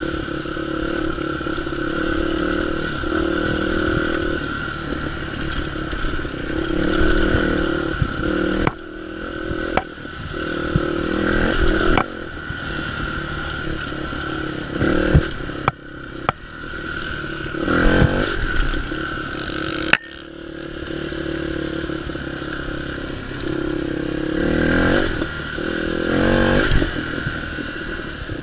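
Dirt bike engine running under way, its pitch and loudness rising and falling with the throttle, with several sharp knocks scattered through it.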